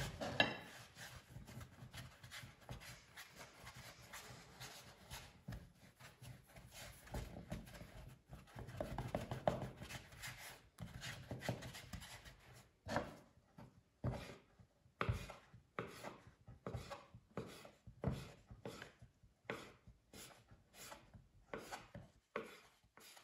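Faint rubbing of hands rolling dough into a thin rope on a floured wooden board. From about halfway, a knife cuts the rope into small pieces, tapping the board in a run of short knocks that gets quicker.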